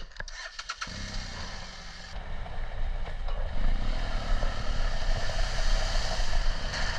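Adventure motorcycle riding: engine running under steady wind and road noise, with a few clicks near the start. About three and a half seconds in the engine pitch rises briefly and the sound grows louder.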